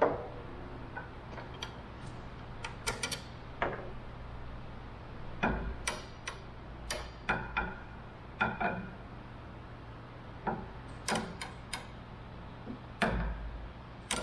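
Irregular light clicks and knocks from a metal landing-gear support tube being moved and positioned against the plywood fuselage, with two heavier thuds about five and a half seconds in and near the end.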